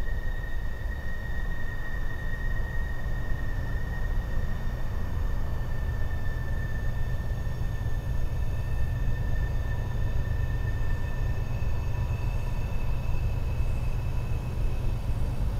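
Coal train rumbling steadily, its sound echoing back from a blasted mountainside, with a thin steady high whine over the low rumble.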